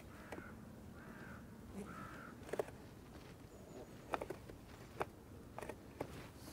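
A crow cawing three times in quick succession, followed by several sharp knocks.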